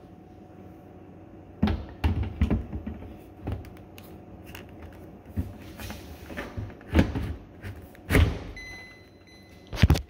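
A series of irregular knocks and thuds as a cabinet door panel is slid onto a dishwasher door and dropped down onto its mounting keys. The knocks begin about a second and a half in.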